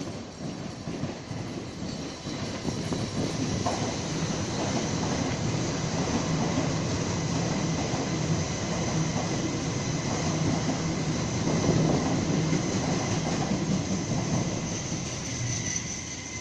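Sydney Trains A-set (Waratah) electric multiple unit passing through a station: a dense rumble of wheels on the rails with a faint steady high whine, growing louder to a peak about twelve seconds in, then fading as it moves away.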